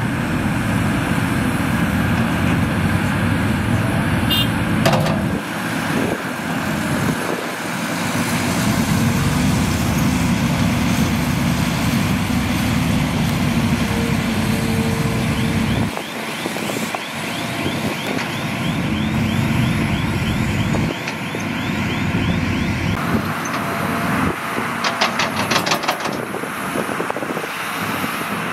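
Hitachi Zaxis 350H excavator's diesel engine running steadily under load while it digs and loads soil, with a short run of sharp knocks near the end.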